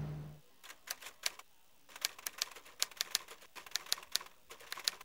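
Typewriter key clicks used as an editing sound effect for on-screen text typing itself out. They come as an irregular run of sharp clicks that starts about half a second in and stops just before the end.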